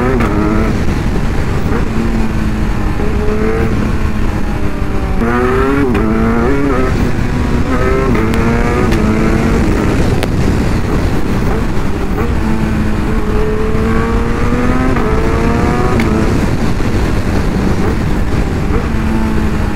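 Kawasaki Ninja 1000's inline-four engine at highway speed, revving up and easing off several times as the rider accelerates and backs off. Heavy wind noise on the helmet microphone runs under it.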